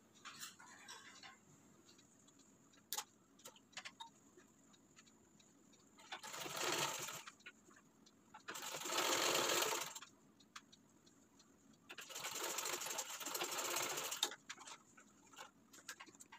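Black straight-stitch sewing machine stitching in three short runs, each about one and a half to two seconds long, with small handling clicks between them. It is sewing shut the gap left for threading elastic into a waistband casing.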